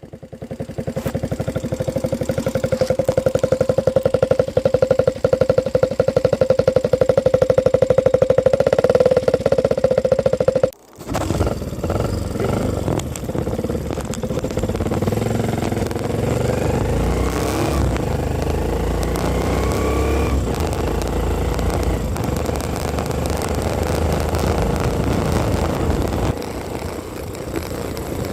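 Vehicle engine exhaust running at idle with an even, rapid pulse. After about ten seconds it cuts out briefly and resumes with a rougher sound, with a few revs rising in pitch in the middle.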